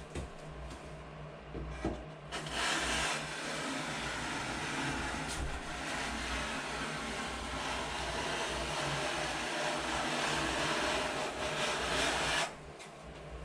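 A small electric power tool or machine running steadily, switched on about two seconds in and cut off sharply near the end, with an even hissing whir.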